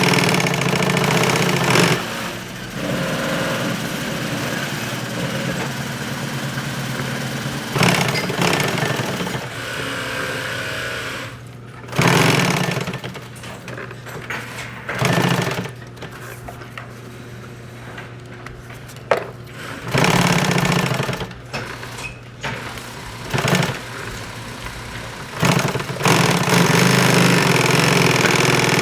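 Sewing machine stitching a pistol magazine pouch in repeated runs of one to a few seconds, stopping and starting again in between.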